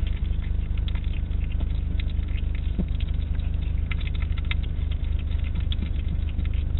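Hedgehog eating from a food dish, a rapid, irregular run of small chewing and smacking clicks, over a steady low hum.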